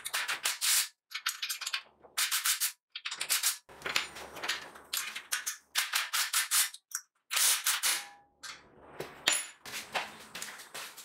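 Hand work on metal: quick runs of sharp clicking, clattering strokes, each run about half a second to a second long, with short pauses between them.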